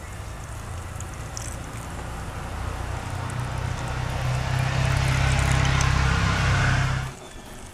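Guinness stout poured in a thin stream into a hot cast-iron Dutch oven of sautéed onions, hissing and sizzling as it foams, over a low steady rumble. The sound builds in level and cuts off suddenly about seven seconds in.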